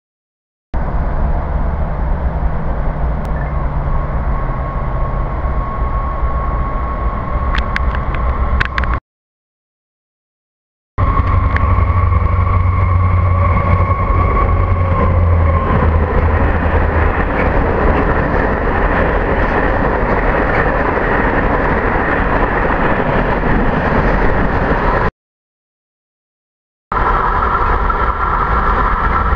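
Vossloh Euro 4000 (Renfe class 335) diesel locomotive hauling a freight train through the station at speed: a loud diesel rumble with a steady whine as it approaches and passes, then the wagons rolling by. The sound cuts out twice for about two seconds.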